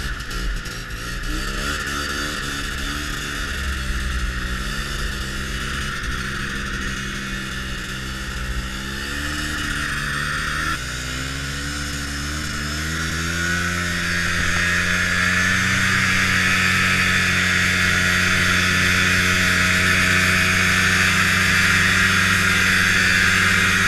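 Snowmobile engine running under way, its note wavering at first, then climbing about halfway through and holding steady at a higher speed, with a steady hiss over it.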